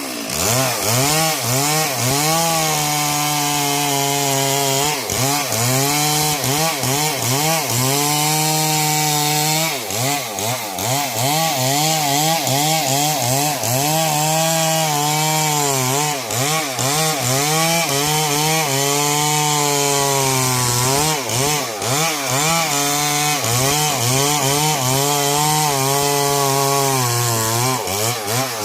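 Stihl MS 382 two-stroke chainsaw cutting wood, its engine note sagging under load and climbing back again and again as the chain bites and frees.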